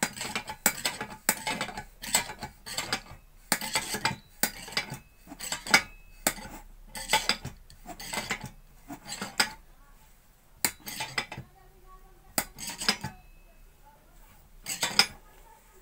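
Repeated metallic clinks and clanks of a spanner on the brass burner of a kerosene pressure stove as the burner is tightened down, several a second at first, then thinning to a few scattered clinks over the last few seconds.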